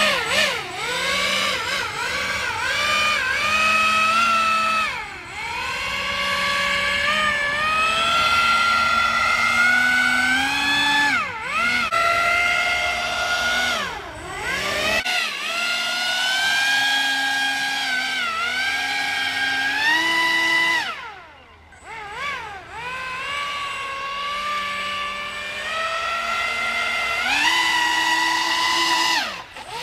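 Pro Boat Aerotrooper RC airboat's brushless motor and air propeller whining, the pitch rising and falling over and over as it revs up and down. The whine drops away briefly about two-thirds of the way through, then picks up again.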